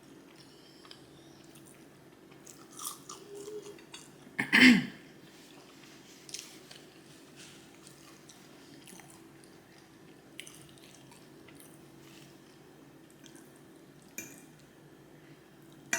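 Close-miked chewing and crunching of fried chicken: scattered wet clicks and crackles of a mouth at work. About four and a half seconds in comes one short, louder voiced mouth sound.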